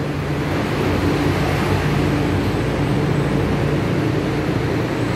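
Steady hum and rush of air inside a Taipei Metro Wenhu line rubber-tyred metro car standing at the platform with its doors open, its air conditioning and onboard equipment running.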